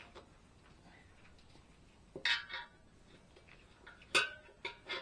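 Metal clinks and knocks while a motorcycle tire is worked onto its rim: a pair of sharp clanks a little over two seconds in, then three more near the end, the first of these the loudest.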